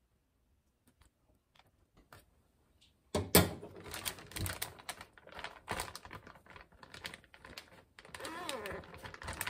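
Ziploc plastic zipper bag of cherry tomatoes, mozzarella and liquid marinade crinkling and rustling as it is handled and kneaded by hand, starting about three seconds in.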